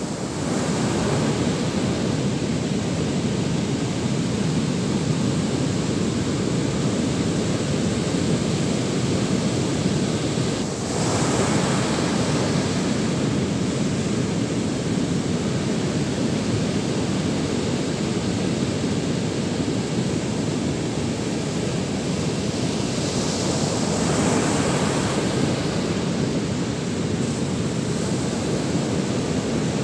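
Surf breaking on a sandy beach: a steady rush of waves, with wind on the microphone filling the low end. The surf swells louder about 11 seconds in and again around 24 seconds.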